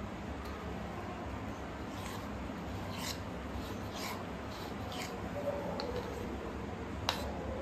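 Faint handling sounds of a potato patty being dipped and turned by hand in a bowl of thin batter, with a few soft clicks from the spoon and ceramic bowl, over a steady hum.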